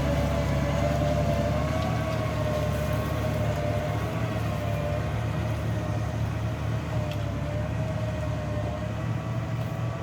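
Large farm tractor engine running steadily, a low drone with a slightly wavering whine on top.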